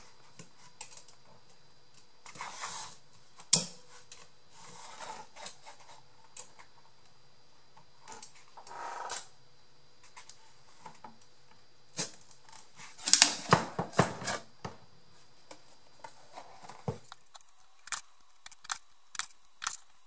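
Handheld hole punch snapping through cardboard in sharp clicks: one about three seconds in, a quick cluster in the middle, and a run of punches near the end. Softer rustling of the cardboard sheet being shifted comes between the punches.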